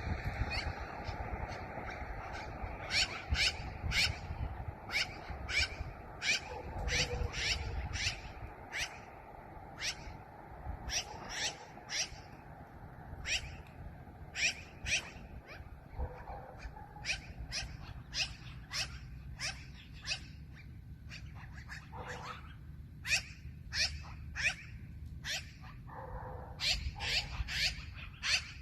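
Black-billed magpie giving a long series of short, harsh calls, one or two a second and irregularly spaced.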